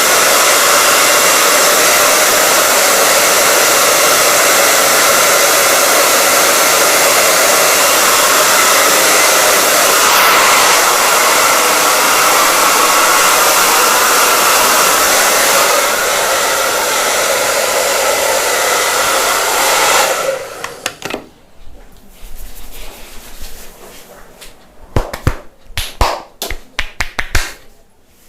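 Handheld hair dryer blowing steadily at a loud level, drying freshly shampooed hair, then switched off about twenty seconds in. After it stops, a quick run of sharp taps or clicks comes near the end.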